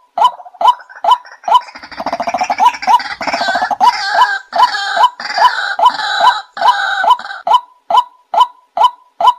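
White-breasted waterhen calling: a loud 'wak' note repeated about twice a second. From about two to seven seconds in, it swells into a busier stretch of overlapping calls with a fast rattling chatter.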